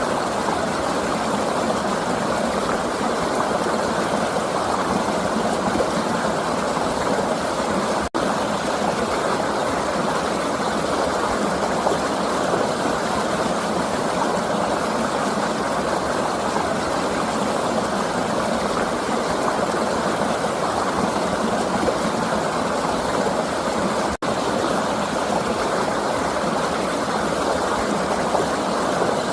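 River water flowing, a steady rush that cuts out for an instant twice.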